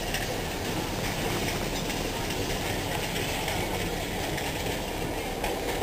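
Darjeeling Himalayan Railway narrow-gauge toy train running along the track: a steady rumble and rattle of wheels on the rails and the moving carriage, heard from an open carriage window.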